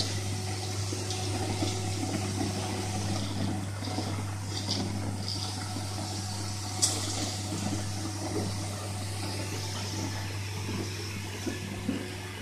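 Wet-spray cellulose insulation rushing out of a hose nozzle in a steady hiss, over a steady low hum. A sharp click is heard about seven seconds in.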